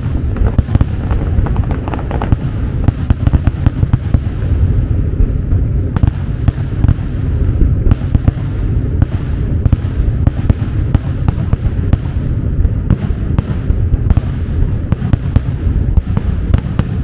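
Fireworks finale roaring: a continuous low rumble of aerial shell bursts, with sharp cracks several times a second.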